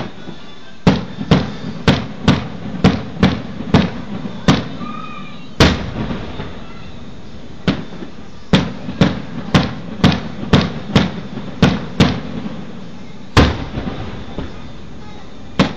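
Aerial fireworks shells bursting in a rapid barrage, sharp bangs about two a second, each trailing off. The barrage pauses briefly about halfway through, then resumes, with one louder bang near the end.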